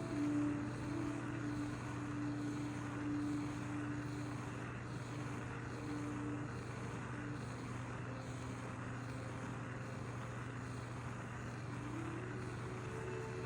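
Gas soldering torch burning with a steady rushing hiss while silver is soldered, over a steady low hum.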